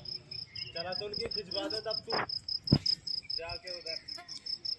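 Crickets chirping in a steady, rapid, even pulse of high notes. Distant voices call a few times, and there is a single sharp knock a little past the middle.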